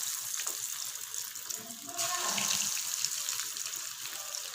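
Breadcrumb-coated snack balls frying in hot sunflower oil in a pan, a steady sizzle with fine crackles.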